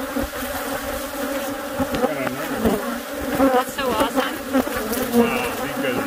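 A swarm of agitated Africanized honey bees (killer bees) buzzing in a dense, steady drone, with single bees zipping close past, their pitch swooping up and down, several times in the middle. The colony is riled up and defensive, its comb just pried open.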